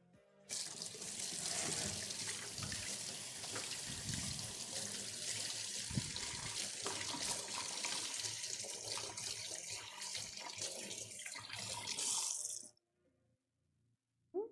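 Water running from a kitchen tap, a steady rush that starts about half a second in and cuts off abruptly about twelve seconds later.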